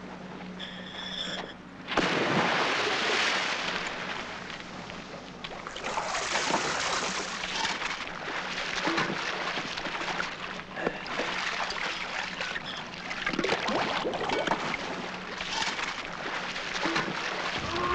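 Water splashing: a scuba diver drops into harbour water with a sudden loud splash about two seconds in, then splashes and sloshes at the surface in repeated surges.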